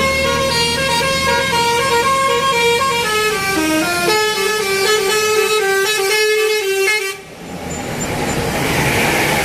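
Basuri telolet multi-tone musical air horn playing a quick tune of stepped notes, which cuts off sharply about seven seconds in. A rising rush of noise follows.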